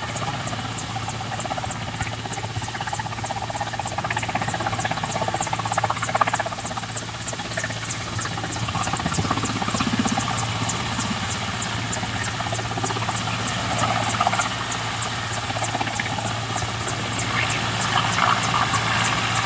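Helicopter running close by: a steady low drone under a high hiss that pulses evenly about three times a second, with faint distant voices now and then.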